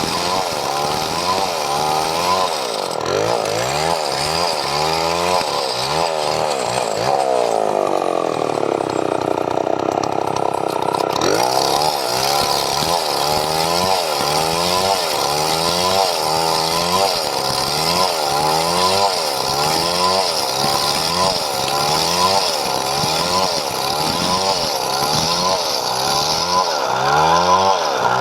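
Chainsaw cutting through padauk wood. The engine pitch keeps rising and falling as the cut loads and frees it, and it sags into one longer drop about eight seconds in before picking back up.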